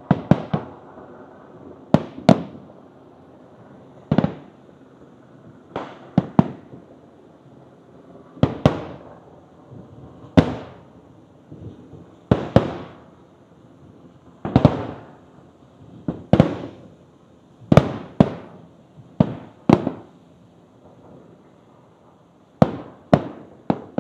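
Aerial fireworks shells bursting in a steady string of booms, one every second or two, some in quick pairs, each trailing off in an echo.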